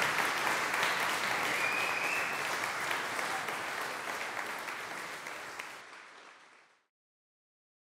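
Audience applauding at the close of a talk, the clapping fading out gradually and ending about seven seconds in.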